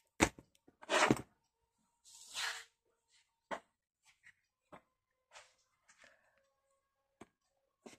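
Paper and hands handling a scrapbooking vanity case as glued paper is pressed and smoothed onto it: a few scattered light taps and short rustles, the loudest about a second in.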